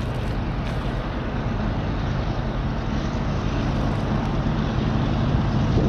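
Diesel locomotives of an approaching train running, a steady low rumble that grows slowly louder.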